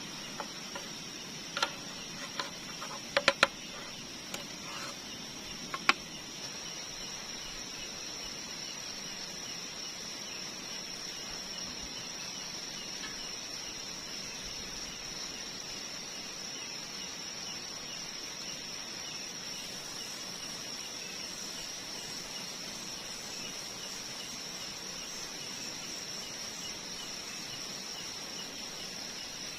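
Steady high-pitched insect chorus, with a few sharp clicks and knocks in the first six seconds.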